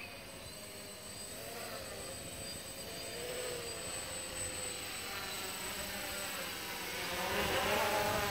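DJI F450 quadcopter's four propellers and motors buzzing in flight, several tones wavering up and down in pitch as the throttle is corrected. It grows louder near the end as the drone comes close.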